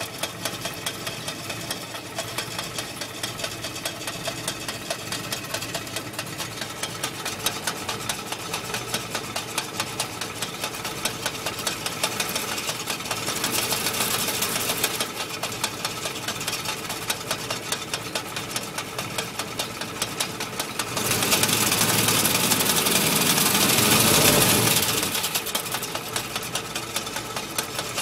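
Willys MB's Go-Devil four-cylinder engine running with a fast, even rattle, the clutch rattling noise the jeep has. It gets louder twice, briefly just before halfway and for about four seconds later on.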